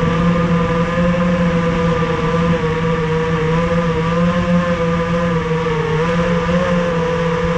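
Racing quadcopter's four Racerstar 2205 2300kv brushless motors spinning DAL 5045 three-blade props, a loud steady whine at an even throttle that wavers only slightly in pitch.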